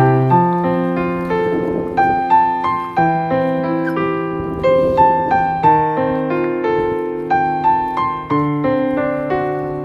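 Background piano music: a flowing melody of single notes over held bass notes.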